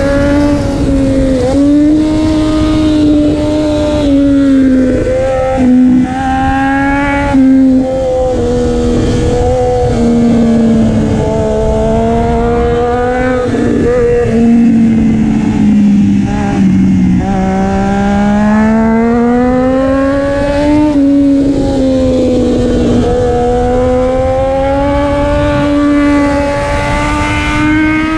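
Triumph Daytona 675's inline three-cylinder engine running through a Racefit slip-on exhaust with the catalytic converter still fitted, really loud. Its pitch wanders slowly up and down, dips lowest about two-thirds of the way through, then climbs again.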